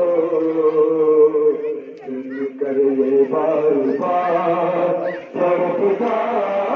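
Men's voices chanting a Muharram lament (noha) in long, wavering held notes, amplified over a loudspeaker, with two short breaks between phrases.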